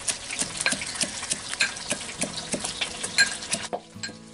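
Roasted red chillies being pounded with a pestle in a small steel mortar: sharp, uneven metallic knocks about three a second.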